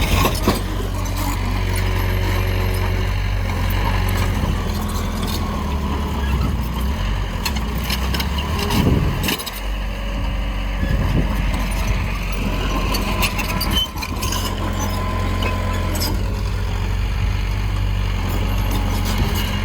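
Heavy diesel earthmoving machinery running steadily, with scattered clanks and knocks.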